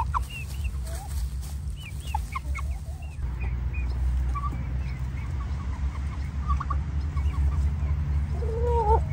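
Domestic poultry calling: scattered short clucks and chirps, with a longer call near the end, over a steady low rumble.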